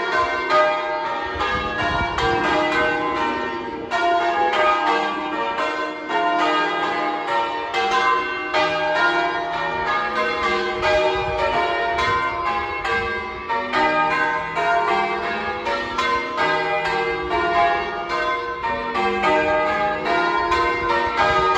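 Church bells being change-rung: a continuous, even stream of bell strokes, several a second, each bell ringing on into the next.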